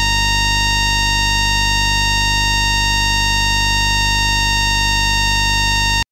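Electromagnetic emission of an FS ALe642 railcar's ASA1 static converter, picked up by an inductor pressed against the machine-room wall rather than by a microphone: a steady electronic whine of several fixed tones over a low hum, cutting off suddenly near the end.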